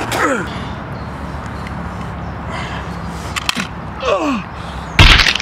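A man's groans, falling in pitch, and a short loud bang near the end.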